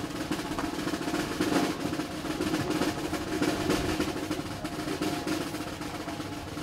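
Live percussion: a continuous snare drum roll, with a steady low tone held beneath it.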